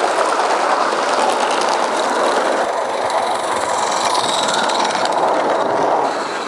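A 16 mm scale live-steam garden railway train running on 32 mm gauge track: a steady rushing hiss of steam and rolling wheels, with light clicking over the rail joints. The sound shifts about three seconds in, when a locomotive close to the track comes into view.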